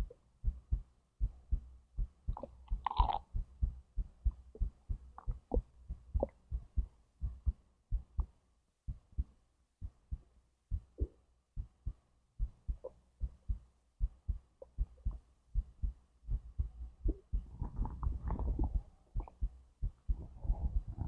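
A human heartbeat heard through the abdomen as regular low thumps. Digestive gurgles come over it: a short gurgle about three seconds in and a longer gurgling rumble near the end as the stomach and intestines work.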